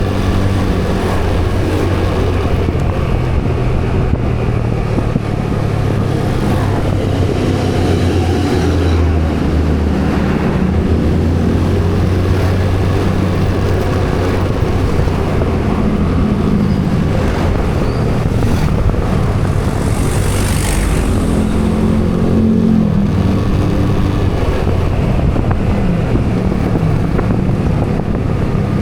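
A road vehicle's engine running while on the move, its pitch rising and falling with the throttle, over steady road and wind noise.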